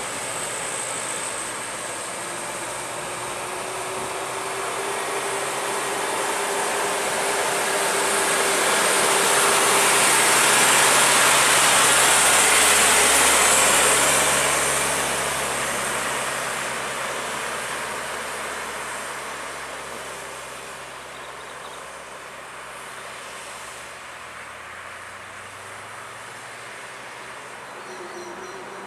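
Loaded Isuzu light truck passing close by, its engine and tyre noise swelling to a peak about halfway through and fading as it drives away, over the hum of other traffic.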